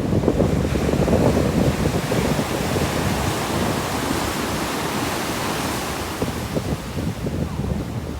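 Sea surf breaking and washing up the shore, with wind buffeting the microphone. The wash is loudest in the first couple of seconds and eases off toward the end.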